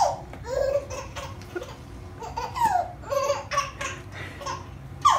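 A baby laughing in a string of short, high-pitched bursts.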